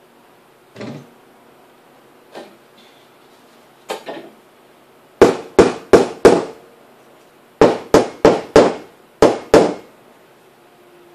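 Metal bakeware knocked sharply ten times, in quick runs of four, four and two, after a few softer taps.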